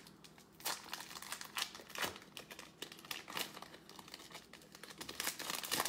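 Crinkling and rustling of a trading-card pack wrapper and basketball cards being handled, with irregular light crackles and clicks, a little busier near the end.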